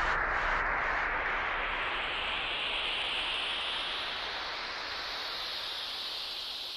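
A white-noise sweep ending an electronic dance track: a steady hiss that rises slowly in pitch while it gradually gets quieter.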